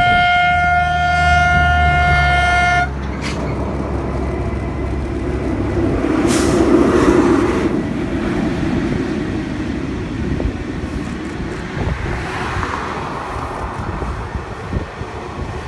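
A freight locomotive's horn sounds one long blast that cuts off sharply about three seconds in. The locomotive then passes, and a long train of loaded freight wagons rolls by, its wheels rumbling on the rails with scattered clicks.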